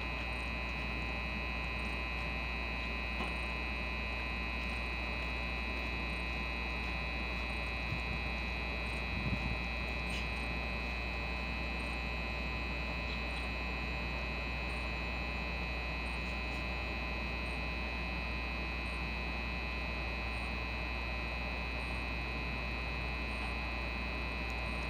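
A standing New Jersey Transit commuter train's onboard equipment running: a steady electrical hum with fixed high-pitched whines over a low drone.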